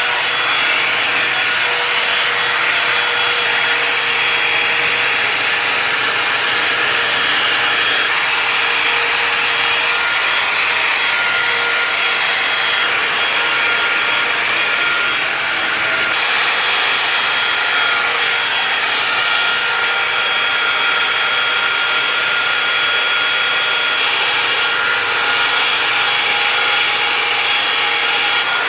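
Tymo hot-air blow-dry brush running steadily: a rushing hiss of air with a steady motor whine.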